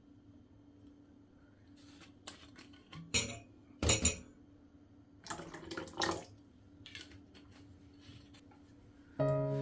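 Dishes and kitchen utensils clattering: a handful of short clinks and knocks, the loudest a few seconds in, over a faint steady hum. Soft instrumental music comes in near the end.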